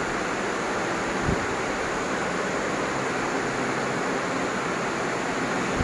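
Steady rushing noise with no speech, like moving air on a phone microphone, with one soft thump about a second in.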